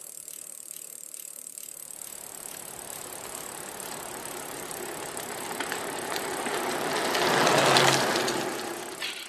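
Bicycle freewheel ticking, then a rushing noise that swells to its loudest about eight seconds in and fades away.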